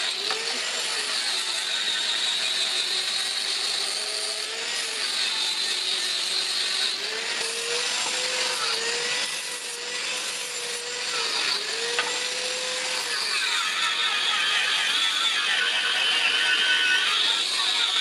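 Continuous grinding noise from a tool working metal, with a hum underneath that rises and falls in pitch.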